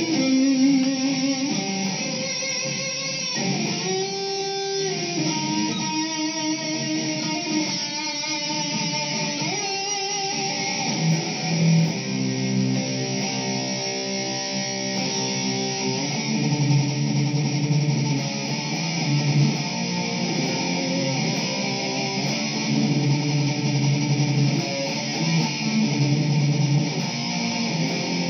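Mexican Fender Stratocaster electric guitar with newly fitted YJM Fury pickups, played as a tone demonstration. For roughly the first ten seconds it plays single-note lead lines with held, wavering notes (vibrato). It then moves to chords and continuous riffing.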